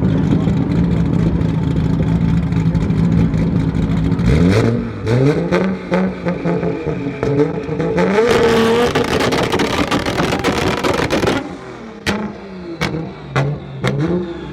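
Car engine held at a steady high rev, then released: the revs climb in repeated rising sweeps, a loud rushing noise follows for a few seconds, and it ends in short rev blips with sharp exhaust pops.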